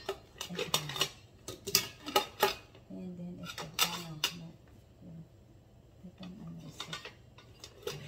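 Metal kitchen utensils and cookware clinking and clattering as they are handled: a string of sharp, irregular clinks with a lull about five seconds in.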